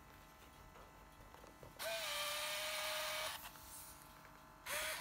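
Olympus Superzoom 120 Multi AF compact film camera's motorised zoom lens whirring out as the camera powers on: a steady whir of about a second and a half, then a second short whir near the end.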